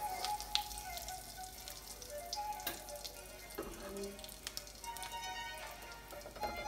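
Oil and food crackling with scattered pops in a hot wok just after the gas is turned off, over soft background music with held notes.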